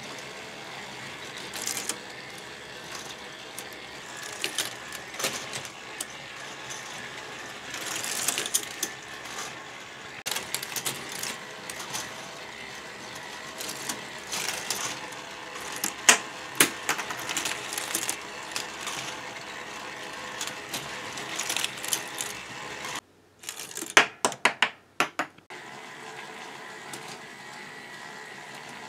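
K'NEX plastic parts-feeder machine running off its electric motor: a steady mechanical whirr of gears with irregular clicking and clattering of plastic parts. About 23 seconds in, the running sound drops out for about two seconds, leaving a few sharp clicks, then returns.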